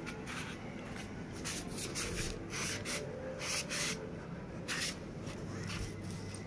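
Siberian husky sniffing close up: a series of short, irregular sniffs.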